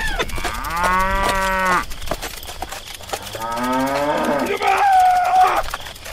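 A cow mooing: two long moos, the second starting about three seconds in and ending on a higher held note.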